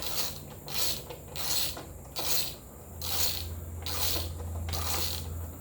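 Hand ratchet wrench clicking in a steady back-and-forth rhythm, about one stroke every three-quarters of a second, as it turns a bolt on the radiator mount. A low steady hum sits underneath from about three seconds in.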